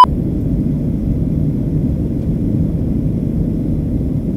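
Steady low rumble of a jet airliner's cabin in flight, heard from a window seat: even engine and airflow noise with no changes.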